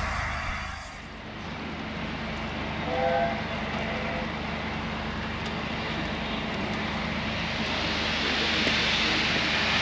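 Steam railway sound around the LNER A4 locomotive Sir Nigel Gresley: a steady rushing noise that grows louder towards the end, with a short pitched toot about three seconds in.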